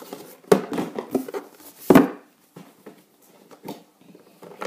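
A cardboard box being handled and set down on a hard floor: a few knocks and bumps, the loudest about two seconds in, then fainter shuffling.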